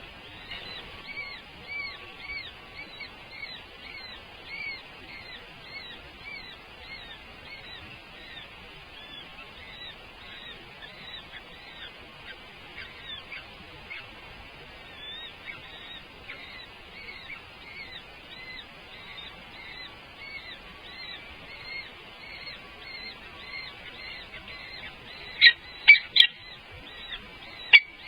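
A bird's high chirps, repeated steadily about three times a second, with three much louder, sharp calls near the end.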